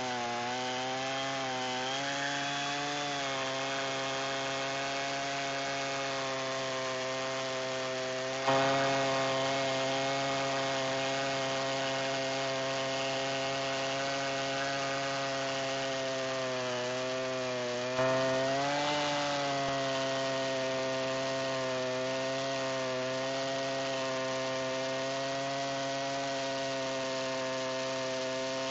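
Chainsaw on a rail mill ripping lengthwise through a sweet gum log, the engine held at a steady high speed under load. Its pitch sags briefly a couple of times as the cut bogs it down, and it grows suddenly louder twice, about a third and two thirds of the way through, then eases back.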